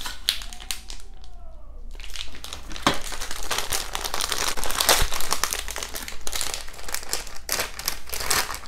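Plastic toy packaging crinkling as it is handled and squeezed in the hands, with a brief lull about a second in.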